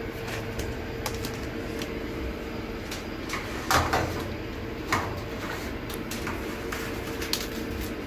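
Furnace air filters being slid out of their slots and handled: scattered clicks, scrapes and light rattles, the loudest a scrape about four seconds in, over a steady low hum.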